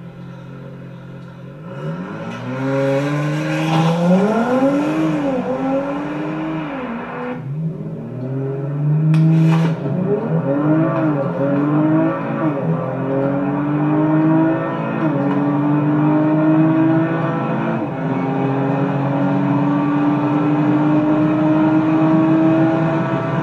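Audi RS5's 2.9-litre twin-turbo V6 accelerating at full throttle. Its pitch climbs through each gear and drops back at each upshift, and the last gear pulls in one long steady rise. A short sharp crack comes about nine seconds in.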